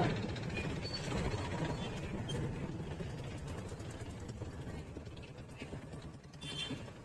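Faint street traffic: motorcycle engines running at low speed in slow, crowded traffic.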